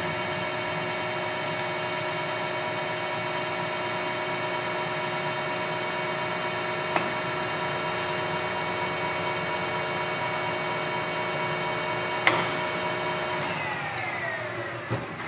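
Kingston 22x90 gap-bed lathe running steadily with a whine of many even tones, with a sharp click about seven seconds in and another about twelve seconds in. In the last two seconds the pitch falls as the machine winds down.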